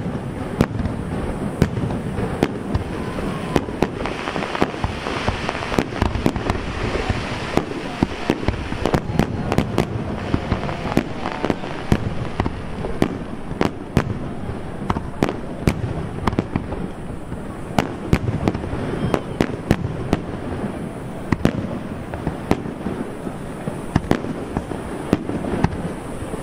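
Fireworks display: aerial shells bursting in rapid succession, many sharp bangs close together over a steady dense din of blasts.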